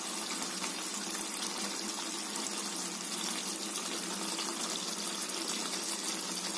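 Chicken curry simmering in a non-stick kadai: a steady, even sizzling hiss of the thick gravy cooking.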